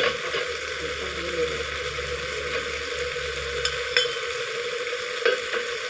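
Chaya greens and fried sun-dried fish sizzling in a hot wok, a steady frying hiss, with a few sharp clicks of a metal spatula against the plate and wok as the fish is scraped in.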